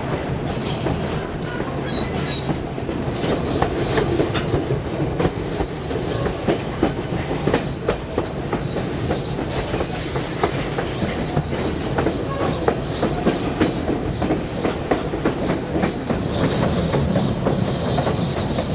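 Narrow-gauge passenger train rolling along the track: a steady rumble of wheels on rail with frequent irregular clicks and clacks.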